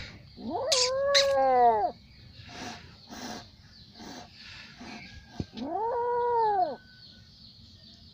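Small kitten giving two long, drawn-out meows about four seconds apart, each rising and then falling in pitch.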